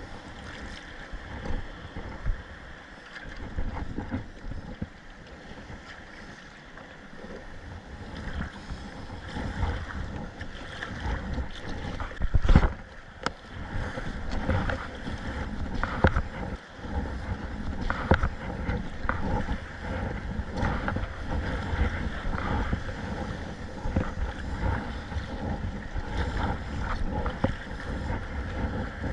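Water splashing and slapping around a kayak in rough sea, with wind buffeting the microphone. A loud thump comes about twelve seconds in.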